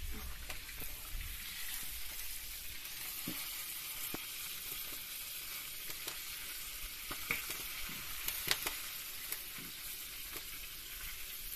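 Diced liver frying in oil in a pan over an open wood fire: a steady hissing sizzle with scattered sharp pops, a few louder ones past the middle.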